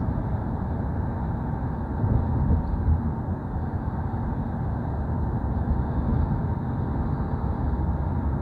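Steady low rumble of a moving road or rail vehicle heard from inside the cabin while it travels through a tunnel.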